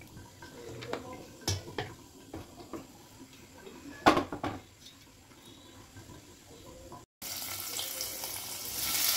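Hot oil in a frying pan: quiet at first with a few light knocks, the loudest about four seconds in, then a steady sizzle that grows louder near the end as cubes of paneer go into the oil.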